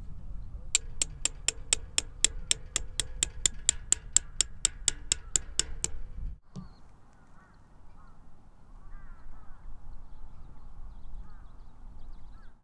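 A steel tent peg being hammered in with quick, even strikes, about four a second for some five seconds, each with a faint ringing note. After that, a few faint bird calls over a low rumble.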